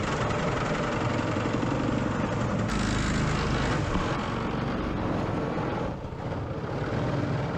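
Small 212cc single-cylinder four-stroke engine running steadily under way, driving the boat's inboard surface-drive propeller. The level dips briefly about six seconds in.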